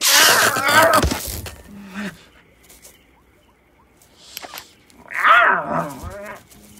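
A crackling electric zap with a wavering cat-like yowl at the start. About five seconds in comes a second wavering cry that falls in pitch.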